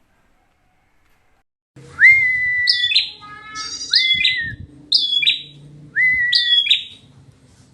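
A caged songbird repeating a loud whistled call four times, each a held note that jumps up to a higher, falling note, starting about two seconds in, with a short chattering burst after the first call.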